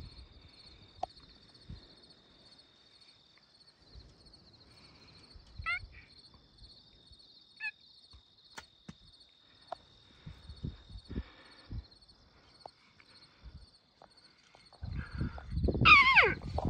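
Faint, steady insect trilling with scattered light rustles and knocks in the grass. About a second before the end, a loud animal call breaks in: a high, wavering cry that falls in pitch, over a rough low undertone.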